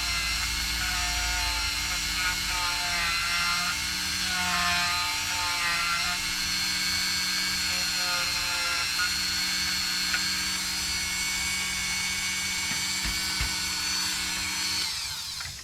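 Dremel rotary tool running at high speed while grinding a deeper channel into a bone of a skeleton bird prop. Its whine wavers in pitch as it bites. Near the end it switches off and winds down.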